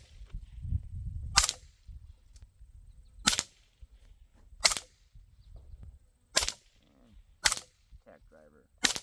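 Six single shots from suppressed 9 mm MP5 SD-pattern carbines, fired semi-auto at uneven intervals of one to two seconds.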